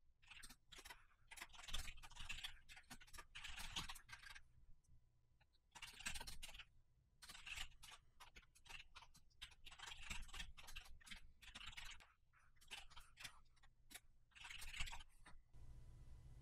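Faint typing on a computer keyboard, in runs of quick keystrokes with short pauses between them.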